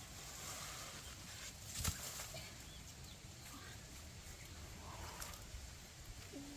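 Leaves and branches rustling as someone climbs down a tree and handles a leafy branch, with one sharp knock about two seconds in.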